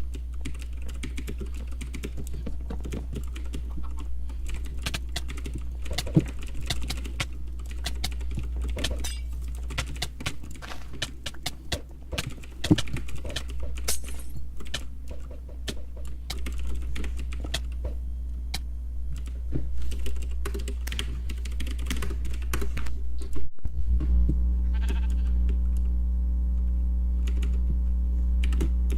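Computer keyboard typing, a rapid, uneven run of key clicks with some mouse clicks, over a steady low hum. The typing thins out near the end, where a steady buzzing tone takes over for the last few seconds.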